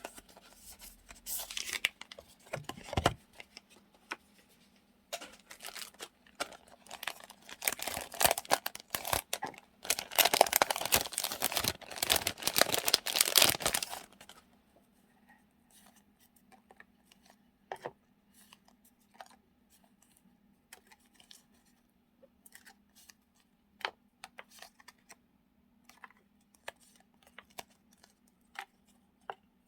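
Paper and plastic sticker packets being handled: rustling and crinkling, densest for several seconds around the middle, then trailing off into scattered light taps and clicks.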